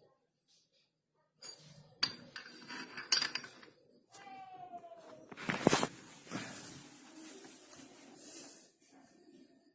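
Metal CVT parts and hand tools clinking and knocking as a Yamaha Nouvo scooter's transmission is taken apart, with one sharp knock near the middle and a short falling squeak just before it.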